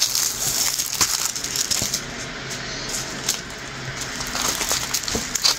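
Rustling and crinkling of packaging with many small clicks and taps, as a diamond painting kit is taken out and unpacked by hand.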